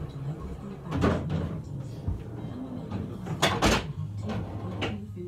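A few sharp clicks and knocks of pool balls and cue on a pool table, over a low background of television sound.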